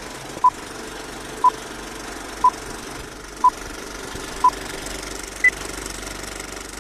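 Film-leader countdown beeps: five short, identical beeps one second apart, then one higher-pitched beep, over the steady clatter of an old film projector running.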